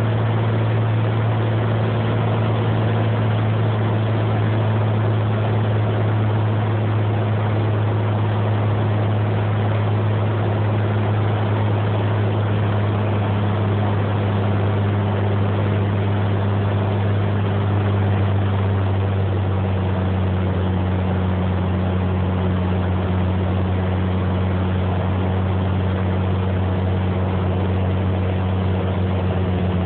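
Cabin drone of a Cessna 210's six-cylinder piston engine and propeller on final approach to landing, heard from inside the cabin. The drone is loud and steady, and drops slightly in pitch a little past halfway through.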